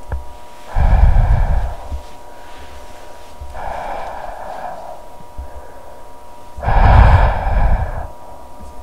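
A person breathing heavily right at the microphone: three loud breaths about three seconds apart, each with a low rumble of breath hitting the mic, over a steady thin hum.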